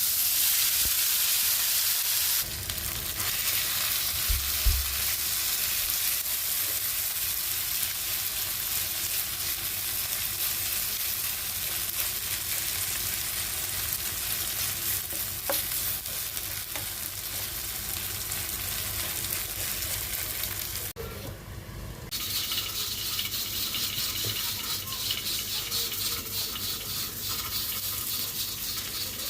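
Oil sizzling steadily in a pan as crushed potatoes fry. The sizzle briefly drops away about 21 seconds in, then carries on.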